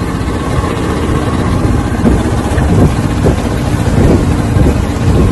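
Boat engine running steadily, with wind on the microphone.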